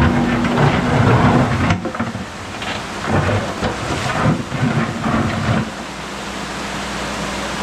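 Menzi Muck spider excavator working rock: a steady engine hum under irregular heavy crunching and grinding of stone.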